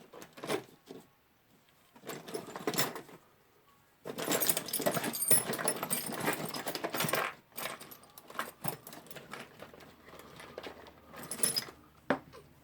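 Small loose parts rattling and clinking as they are rummaged through by hand, most heavily for a few seconds in the middle, with scattered clicks before and after.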